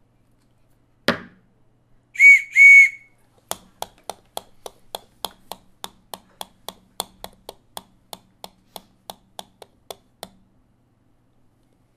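Homemade foley for a cartoon steamboat: a single sharp knock, then two short, loud, high-pitched whistle toots for the boat's steam whistles. A steady run of light clicks follows, about four a second for some seven seconds, then stops.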